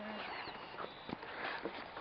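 Footsteps crunching along a dirt trail, a few irregular knocks over steady outdoor hiss, with a couple of short high bird chirps.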